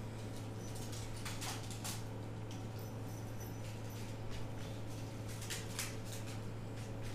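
RagaMuffin kittens scampering and pouncing on a hardwood floor: a few short, scratchy rustles of paws and claws, over a steady low hum.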